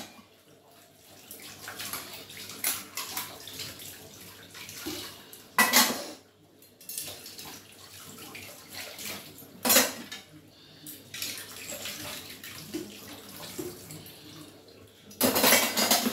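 Stainless-steel dishes being washed by hand at a kitchen sink: utensils clinking and clattering against each other under water running from the tap. It gets louder about six and ten seconds in, and again near the end.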